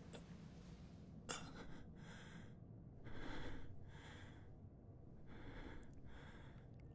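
Faint breathing: several soft breaths, one about every second, with a short click a little over a second in.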